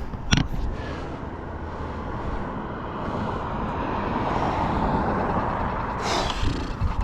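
Steady rushing noise of riding a bicycle on the road, wind on the microphone and tyres rolling. It swells through the middle and eases off near the end, with one short click early on.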